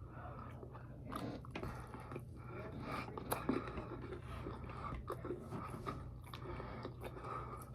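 A person chewing and biting into chicken wings, with irregular wet smacks and small clicks, over a steady low hum.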